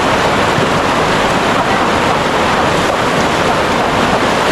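Loud, steady rushing noise with no distinct events, such as heavy rain, a torrent or wind buffeting the microphone.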